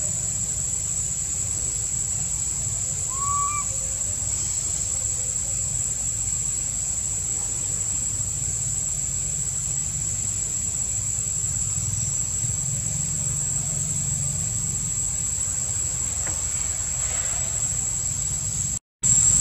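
Steady high-pitched insect drone over a low rumble, with one short rising-then-falling chirp about three seconds in. The sound cuts out for a moment just before the end.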